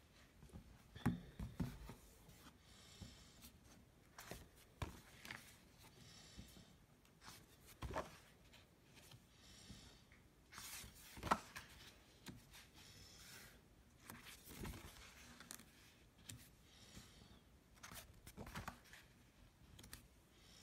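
Pencil, conté and charcoal strokes on paper: faint scratching in short irregular spells, broken by scattered taps and knocks, the sharpest about eleven seconds in.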